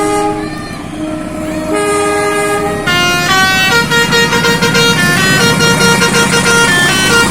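Multi-tone musical 'telolet' horn playing a tune, first in a few held notes, then from about three seconds in a faster, busier run of notes.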